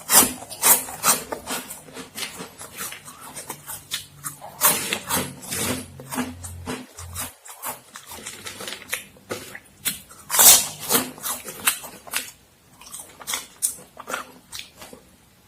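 Close-miked crunching and chewing of Momogi corn stick snacks: irregular crisp cracks and crackles, with denser bursts of crunching about a third of the way in and again about two-thirds through.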